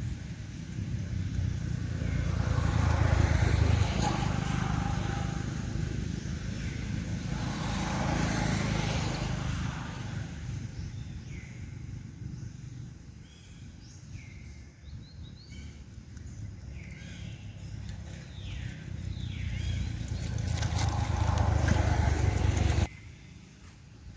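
Road vehicles passing, their noise swelling and fading three times with a low rumble. There are a few faint high chirps in the quieter stretch between, and the sound cuts off abruptly near the end.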